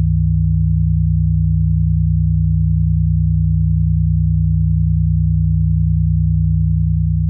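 Steady low electronic drone of several pure sine tones layered together, all pitched below about 200 Hz, unchanging, with no melody or rhythm.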